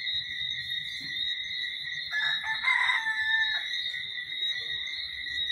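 A rooster crows once, about two seconds in, with one drawn-out call lasting about a second and a half. Behind it runs a steady, high-pitched drone of insects such as crickets.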